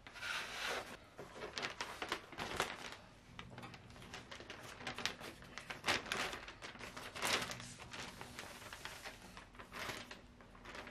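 A roll of black vinyl contact paper being unrolled and handled, its sheet and paper backing rustling and crinkling in irregular swishes and crackles.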